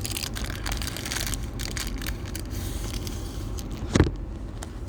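Crinkling and crackling of a plastic packaging bag being handled, with a sharp knock about four seconds in.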